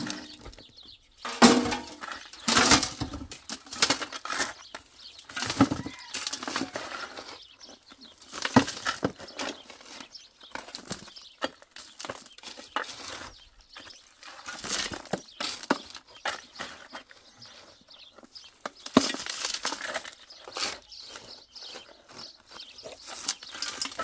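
Steel shovels scraping and biting into stony soil, and dirt and rocks being tipped into a steel wheelbarrow, with stones clattering on its tray. The strokes come irregularly, a few sharp ones every couple of seconds.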